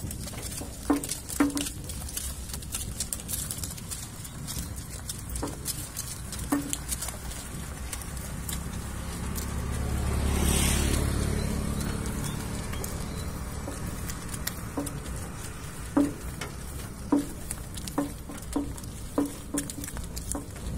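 Ox-drawn bullock cart rolling along a paved road: a steady rattling rumble from the cart, with scattered sharp knocks from the oxen's hooves and the wooden cart, coming more often near the end. Just past the middle a broad whooshing swell rises and fades.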